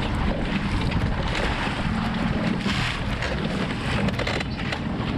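Wind blowing across the microphone on an open boat, a steady low rumbling noise.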